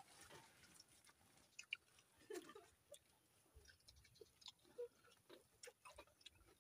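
Faint, scattered chewing and mouth sounds of several people eating by hand, with a few small clicks.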